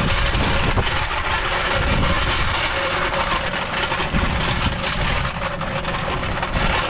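Steel floor jack's small wheels rolling and rattling over rough asphalt as it is pushed along, with an engine idling underneath.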